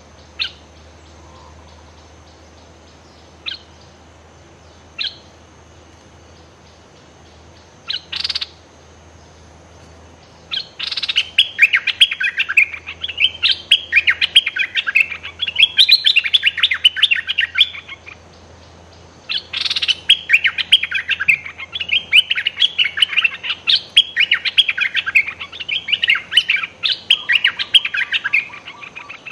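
Merbah lekir bulbuls calling. A few single sharp notes come in the first eight seconds, then long runs of rapid, harsh chattering start about ten seconds in and again about twenty seconds in; the title describes the decoy bird scolding nonstop at a bold wild bird.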